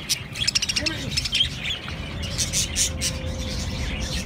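A flock of budgerigars (parakeets) chattering, with many quick high chirps and warbles overlapping throughout.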